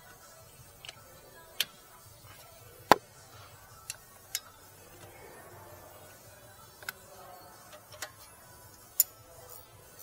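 Steel wrenches clinking on a rear brake caliper's guide bolts as they are worked: about eight sharp, irregular metallic clicks, the loudest about three seconds in.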